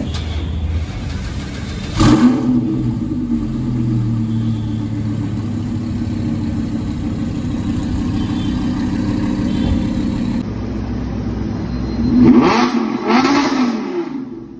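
Audi R8's V10 engine through a Capristo aftermarket exhaust starting up about two seconds in with a sudden loud flare, then settling into a steady idle. Near the end it is blipped twice, the pitch rising and falling each time.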